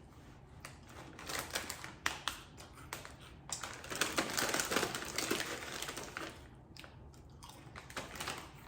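Crunchy Quest chili lime protein chips being chewed close to the microphone: an irregular run of sharp, crackling crunches, thickest about four seconds in.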